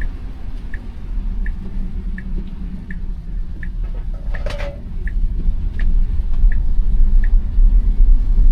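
Turn-signal ticking inside a Tesla Model Y during a left turn, an even tick about every three quarters of a second that stops near the end, over low road rumble in the cabin that grows louder toward the end. A brief rustling noise comes about halfway through.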